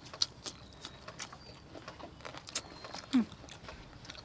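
Eating sounds: wet lip smacks, sucking and chewing clicks as people eat sticky chili-glazed chicken wings with their fingers. A short low falling sound about three seconds in is the loudest moment.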